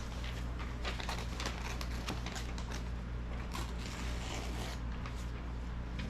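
Paper rustling and crackling as a page is handled and ripped out, in a string of short irregular tears and crinkles over a steady low hum.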